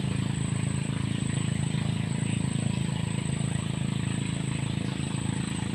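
A steady low engine drone, even in pitch and level.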